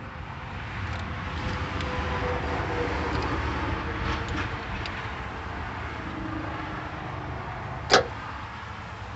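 A passing vehicle's rushing noise swells and fades, with a few light metallic clicks from a wrench tightening a battery terminal clamp and one sharp click about eight seconds in.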